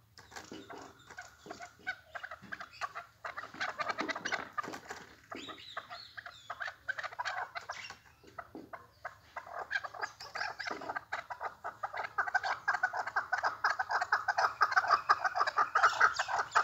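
Chukar partridges calling in a rapid, continuous run of clucking notes, growing louder over the last few seconds.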